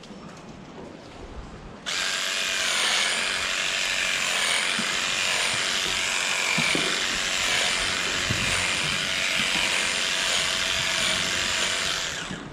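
A power tool starts suddenly about two seconds in and runs steadily at high speed, a loud high-pitched whine, for about ten seconds before dying away near the end.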